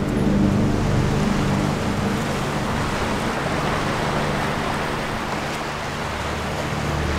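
Steady rushing of sea surf and wind on the coast, with soft held music notes underneath that fade out in the middle and come back near the end.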